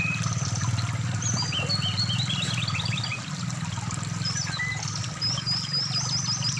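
Brown-chested jungle flycatcher singing quick runs of short, high whistled notes over the steady rush of stream water.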